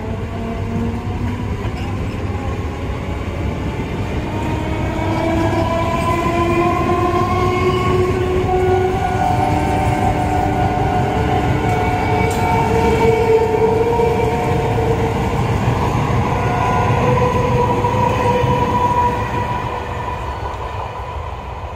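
Conventional electric multiple unit (EMU) local train pulling away and gathering speed. Its motors whine in several tones that climb steadily in pitch over a steady rumble from the wheels on the rails. The sound fades near the end.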